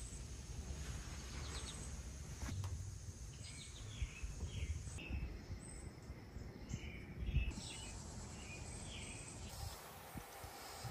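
Outdoor ambience: birds chirping in short repeated calls over a low, uneven rumble, with a couple of soft thumps about four and seven seconds in.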